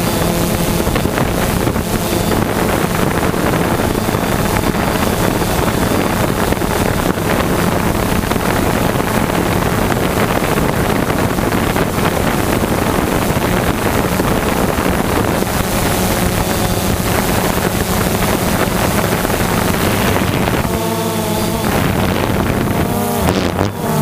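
Quadcopter drone's motors and propellers running steadily, heard from the drone's own microphone with wind buffeting it. A few seconds before the end, the pitch wavers.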